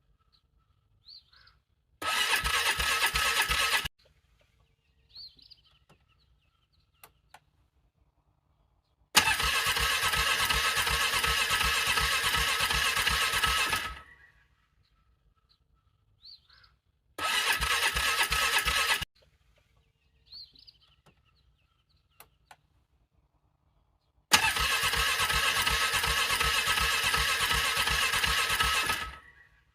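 A car engine cranked by its starter in four tries of about two to five seconds each, with an even rhythmic pulse and near silence between tries. It does not catch: in frigid cold the engine is struggling to crank over.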